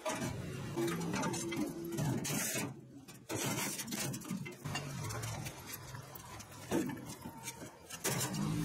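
Metal rotary tiller tines and parts clanking and scraping against the sheet-metal bed of a hand cart as they are set down and shifted about, in irregular knocks with a few louder bangs.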